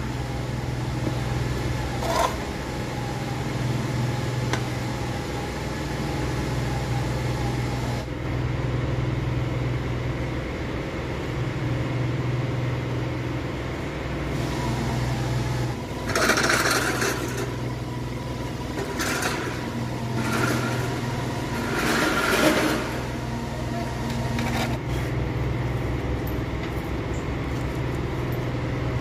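A steady low engine hum runs throughout. In the second half it is broken by several short bursts of metal clatter from handling the parts of a split-open automatic transmission and its hoist chain.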